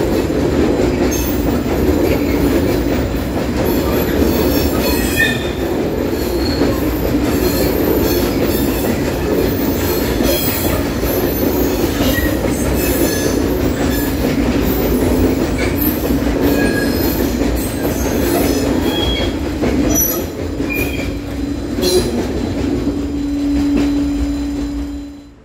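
Freight train of hopper wagons rolling past at close range: a steady rumble of wheels on rail, with short, high wheel squeals breaking in again and again throughout, and a steady low hum near the end as the last wagons go by.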